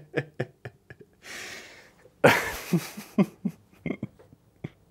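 A man's wordless reactions: a breathy exhale, then a sudden loud burst of short vocal noises falling in pitch, after a few faint clicks near the start.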